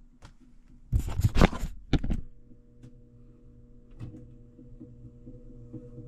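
Clattering handling noise about a second in, then a furnace draft inducer motor starts and runs with a steady hum. The technician suspects the motor's bearings are worn.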